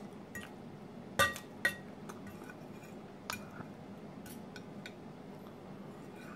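Metal knife and fork clinking against a ceramic plate while cutting pancakes: two sharp ringing clinks a little over a second in, then a few fainter taps.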